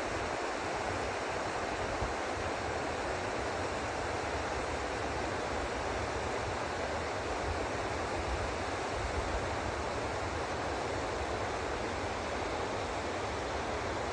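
Steady, even rushing outdoor noise with irregular low rumbling underneath.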